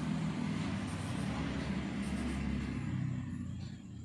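A motor vehicle passing by: a low rumble under a broad hiss that holds steady, then fades away near the end.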